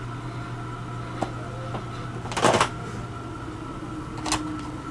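Room tone: a steady electrical hum, broken by a click about a second in and two short rustles or knocks of handling, the louder one about two and a half seconds in.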